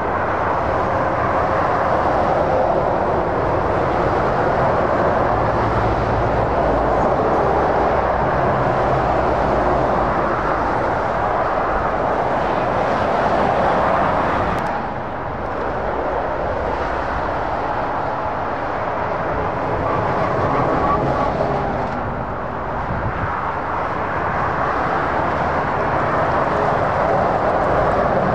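Heavy motorway traffic passing: lorries, vans and cars giving a steady rush of tyre and engine noise, with a brief dip about halfway through.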